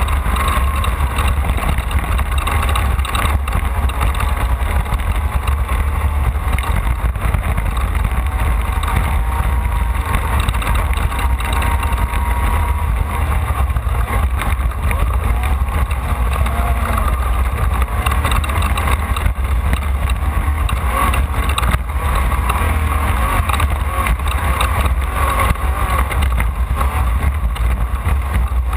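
Off-road race car's engine running hard at speed, heard from on board the car, with a heavy, steady low rumble.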